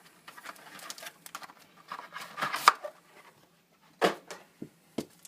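Hands handling trading cards and their packaging: scattered short rustles and clicks, a louder rustle about halfway through, and two sharp clicks about a second apart near the end.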